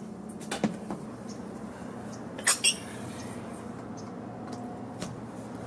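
Light clicks and clatters of an extension cord being handled and its plug pushed into an outdoor wall outlet under a metal cover, with two sharper clicks close together about two and a half seconds in.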